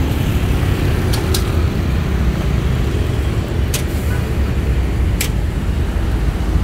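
Steady rumble of city road traffic, cars and buses passing, with four short sharp clicks spread through it.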